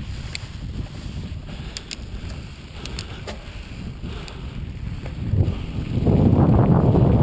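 Mountain bike rolling along a dry dirt singletrack: a low rumble of tyre noise and wind buffeting on the camera, with a few sharp ticks and rattles. About six seconds in the rumble gets clearly louder and rougher.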